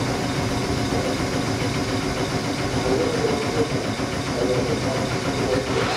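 Steady mechanical hum from a stationary Tobu 6050 series electric train's onboard equipment, with a short hiss near the end.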